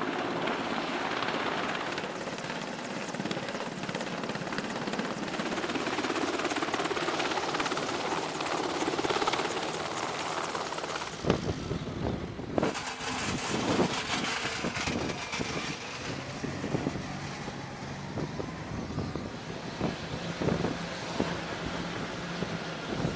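Navy helicopter hovering with a sling load: a steady rotor and engine noise. After about eleven seconds the sound changes to a less even noise broken by a series of knocks and thumps.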